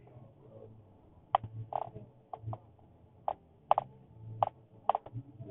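A series of short, sharp clicks and taps at an irregular pace, about ten in all, with a faint low hum behind them.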